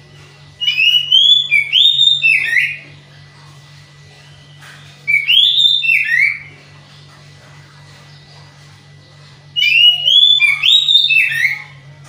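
Oriental magpie-robin (kacer) singing three short phrases of clear whistled notes that rise and fall, each about two seconds long with pauses between them. The bird is in song but short of breeding drive, which the keeper says makes its song sound monotonous.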